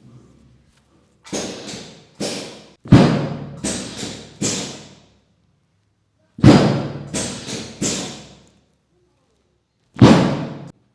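Loud thuds from chiropractic manipulation thrusts on the upper back against a treatment table during a thoracic spine adjustment for kyphosis. They come in quick runs of several hits, each with a short ringing tail, then a single last thud near the end.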